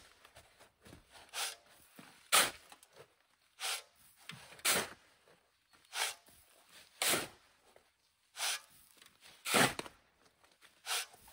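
Shovel scraping sand off a metal trailer bed and sand being thrown onto a tarp-covered pile, repeated at a steady rhythm of about one stroke a second.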